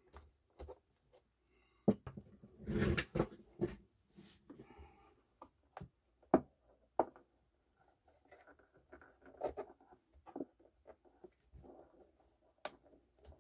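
Scattered clicks, knocks and scrapes of hands and a screwdriver working at the plastic motor cover of a Yamaha YP-D71 direct-drive turntable, trying to free it. The loudest is a scraping burst about three seconds in, and fainter rubbing and clicking follow.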